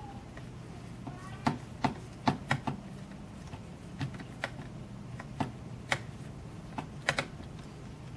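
Irregular sharp clicks and taps of a small screwdriver and fingers on the plastic and metal body of a Sony Mavica CD camera as its base screws are driven back in, with a cluster of clicks a couple of seconds in and another near the end.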